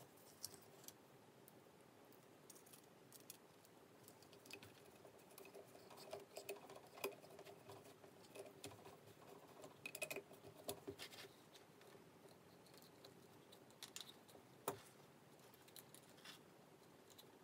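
Faint, scattered clicks and taps of small hard parts being handled as an electric motor is fitted to a plastic RC transmission, over a faint steady hum. The sharpest single click comes near the end.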